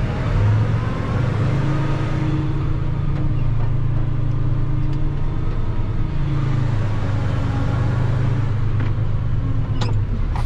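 Truck engine running under light throttle as the truck creeps along, its pitch rising about a second in, dropping around six seconds and picking up again soon after. A few sharp clicks come near the end.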